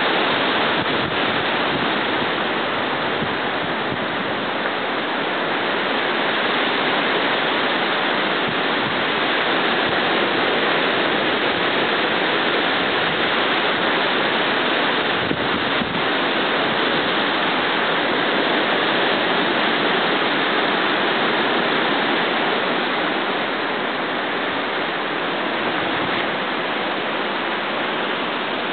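Steady rushing hiss of hurricane wind and rain, even throughout with no let-up.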